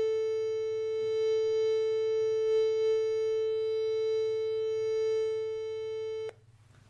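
Steady single-pitch test tone played from an iPhone's speaker, held without change and cutting off suddenly about six seconds in.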